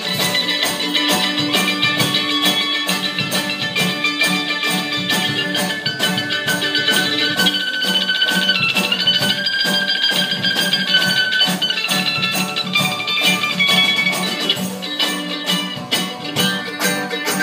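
Live acoustic string band playing: banjo, acoustic guitar and mandolin picking and strumming together at a steady pulse of about four strokes a second.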